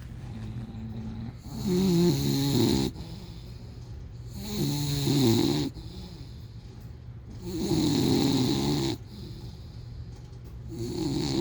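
Bulldog snoring loudly in a steady rhythm: four rattling snores about three seconds apart, with softer breaths between.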